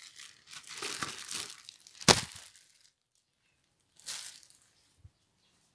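Handling noises: a rustle, then a single sharp click about two seconds in, and another short rustle about four seconds in.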